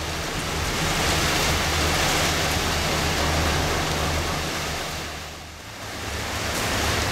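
Kiha 28 and Kiha 52 diesel railcars standing at the platform with their DMH17-series engines idling: a steady low hum under a loud, even hiss, which dips briefly about five seconds in.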